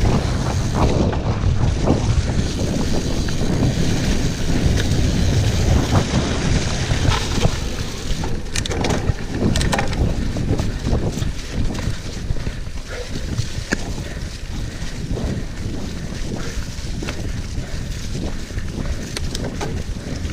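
Wind buffeting the action-camera microphone as a cross-country mountain bike rolls along forest singletrack, a steady low rumble mixed with tyre noise on dirt and leaves. Sharp clicks and rattles from the bike over bumps come through it, with a run of them about nine seconds in.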